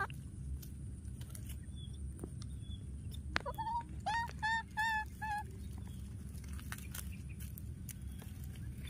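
Baby macaque crying: a quick run of about five short, high-pitched calls a little past the middle, over low steady background noise.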